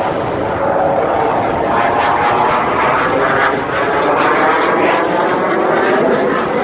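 Engine of an aerobatic display airplane flying overhead: a continuous drone that grows a little louder about a second in.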